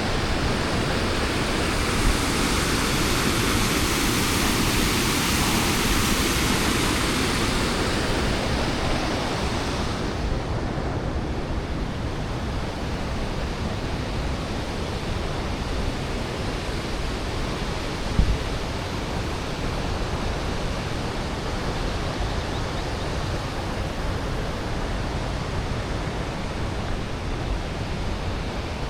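Steady rush of the Big Sioux River waterfall pouring over rock. It is brighter and fuller for the first eight seconds or so, then duller. There is a short thump about eighteen seconds in.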